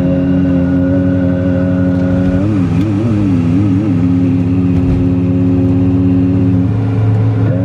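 A voice chanting long, held melodic notes that break into wavering ornaments partway through. Under it is the steady hum of a car cruising on a highway.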